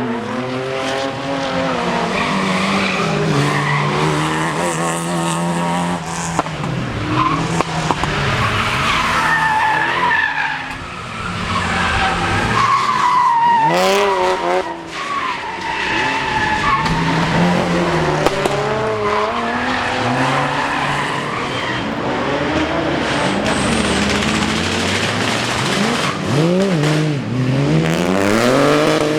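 Rally car engines revving hard, the engine note climbing and dropping again and again through gear changes and lifts, with tyres skidding as the cars drift.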